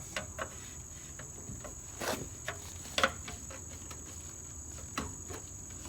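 A plastic hubcap being worked off a car wheel by hand, giving a few short, sharp plastic clicks and knocks over a steady high-pitched tone in the background.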